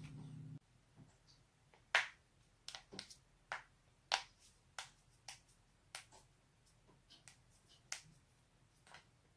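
Joints cracking: about fifteen sharp pops in quick, irregular succession, the loudest about two seconds in. A low hum cuts off in the first second.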